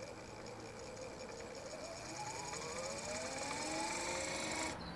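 Small electric motor in a SWIWIN SW220B RC jet turbine installation, run from the turbine's ground support unit during setup. It whines and rises steadily in pitch as it spins up, then cuts off suddenly just before the end.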